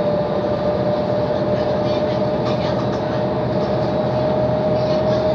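Mercedes-Benz O 530 Citaro city bus under way, heard from inside the passenger cabin: a steady engine and road drone with a constant high whine running through it.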